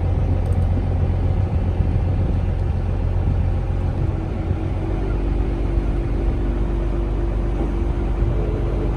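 Canal tour boat's engine running with a steady low rumble. A steady higher hum joins in about halfway through.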